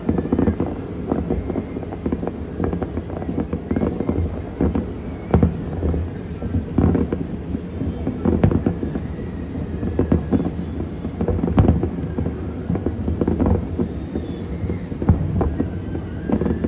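Distant aerial fireworks display: shells bursting in an irregular barrage of booms and pops over a continuous low rumble.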